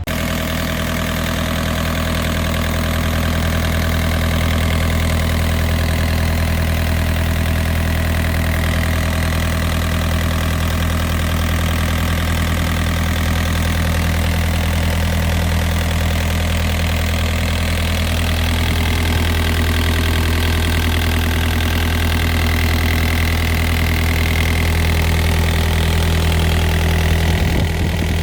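Yanmar diesel engine of a 2004 Takeuchi TB145 mini excavator running steadily, a little louder after the first few seconds.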